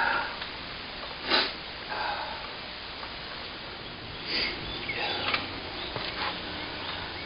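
Brake pad being slid into the caliper bracket's retaining clips: a few short metallic scrapes and small clicks, with the loudest rasp about a second in.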